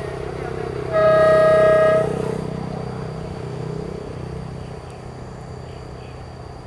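Diesel locomotive's horn sounding one blast about a second long, about a second in, over the steady low rumble of the locomotive's diesel engine as the train approaches.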